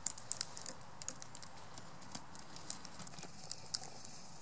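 Young Northwestern crow's beak pecking at and cracking sunflower seeds: a quick, irregular run of sharp clicks, thickest in the first half second.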